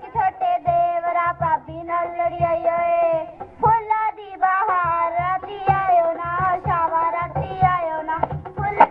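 Punjabi folk song played over a loudspeaker: a high voice sings the melody over a steady, regular low drum beat.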